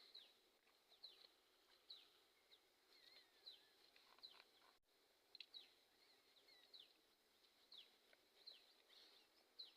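Faint bird chirps: short, high, downward-sliding calls repeated irregularly, about one a second.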